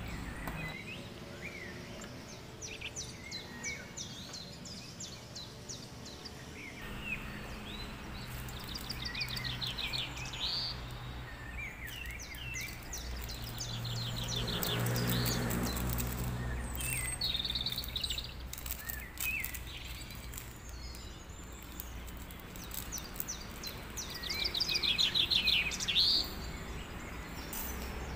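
Small birds chirping and singing in short, fast trilled phrases that come and go, loudest near the end, over a low steady hum.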